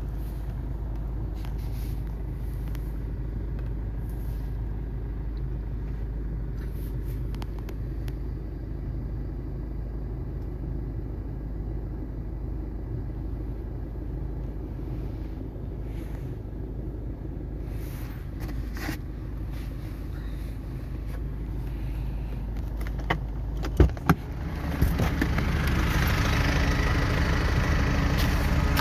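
Car engine idling steadily while warming up in cold weather, muffled inside the cabin. About 24 seconds in there are a couple of sharp clicks, and from then on the idle is louder and fuller, heard outside the car.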